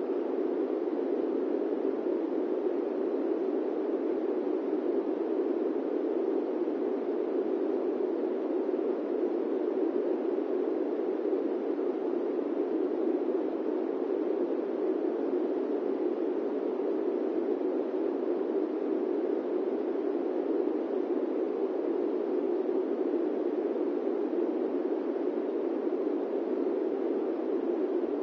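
Steady, unchanging rushing noise with a muffled, mid-low tone, played as airplane-cabin white noise. It has no engine tones, bumps or other events.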